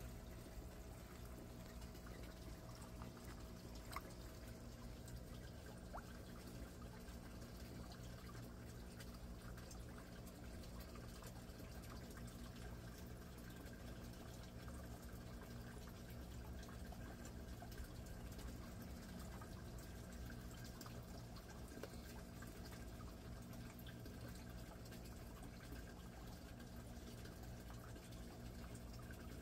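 Faint water trickling and dripping into an aquaponics fish tank over a steady low hum, with a light click about four seconds in.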